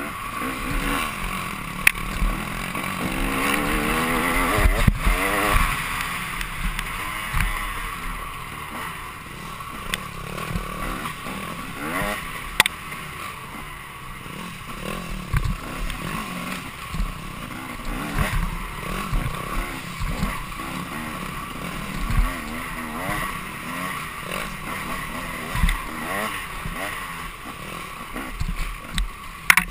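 Off-road dirt bike engine revving up and down as it is ridden hard over rough trail, with sharp knocks from the bike striking rocks and bumps.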